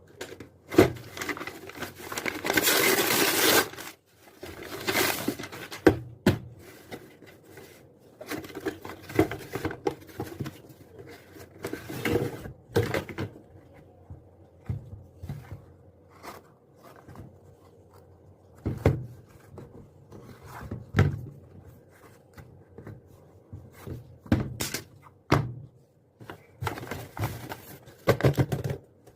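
Unboxing handling noises: a cardboard shoebox and its packaging handled, with scattered knocks and scrapes and a long loud rustle about two seconds in.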